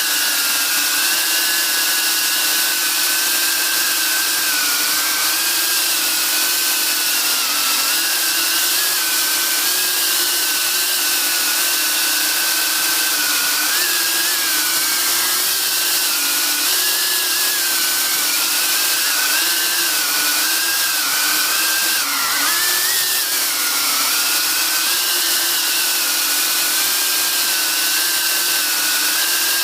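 Brushless motors and propellers of an Eachine Cvatar 4S FPV quadcopter whining steadily, heard from a camera mounted on the drone; the pitch wavers up and down with the throttle, with a short dip and rise a little past the middle.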